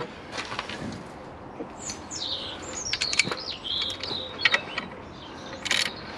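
Ratchet wrench clicking in short runs as it tightens the nut on the alternator's B+ battery terminal, with a louder clatter near the end. Birds chirp in the background.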